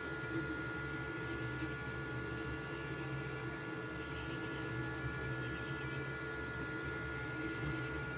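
FLSUN QQ-S delta 3D printer with a flying extruder printing: a steady motor-and-fan hum with several held tones.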